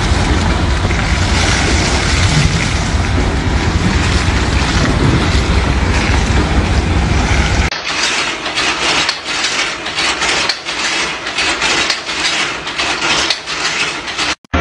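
A sheet of water pouring and splashing down with a loud, steady rush. About eight seconds in it cuts to an automatic wire-working machine clattering with rapid, irregular clicks.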